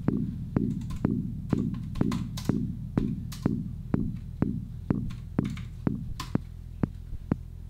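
Eurorack modular synthesizer playing a steady run of percussive, plucked-sounding notes, a little over two a second, each ringing out with a falling tail. About six seconds in the notes turn short and clicky, as the slewing control voltage shaping the patch is jumped straight to a new value.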